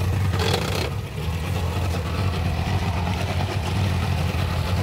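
Fuel-injected outboard motor running steadily at low speed, with a brief rush of noise about half a second in.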